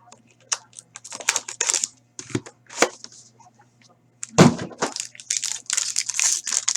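Plastic and paper packaging of hockey trading cards crinkling and rustling in many short, irregular bursts as cards are unwrapped and handled, with a heavier handling bump about four and a half seconds in.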